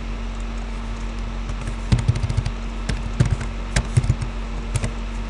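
Computer keyboard typing: a quick run of key clicks starting about two seconds in and lasting about three seconds, over a steady low electrical hum.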